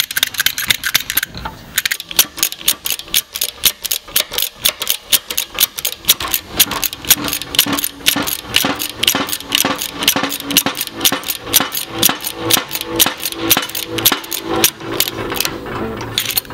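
Shop press being pumped to push a new bearing onto a differential pinion shaft: a fast, even clicking, about five strokes a second.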